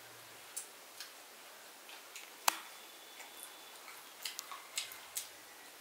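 Chewing on pickled chicken feet soaked in fish sauce with lemongrass and chili: a dozen or so sharp, irregular crunching clicks of skin and cartilage in the mouth, the loudest about two and a half seconds in.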